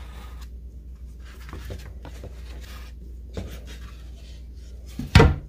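Pencil scratching along a walnut-and-maple wood blank as a paddle outline is traced, over a low steady hum. One loud knock near the end.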